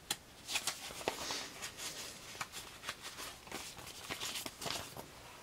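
Trading cards and paper being handled: an irregular run of small clicks, taps and rustles.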